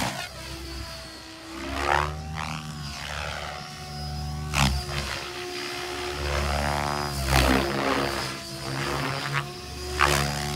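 Electric Logo 700 RC helicopter in 3D aerobatic flight. Its rotor drone rises and falls in pitch and loudness as it flips, with a loud blade whoosh every two to three seconds.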